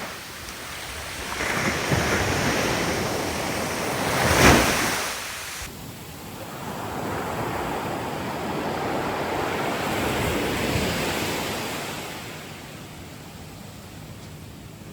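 Ocean surf washing in: a wave builds and breaks, loudest about four and a half seconds in, then a second, softer wash swells and fades away.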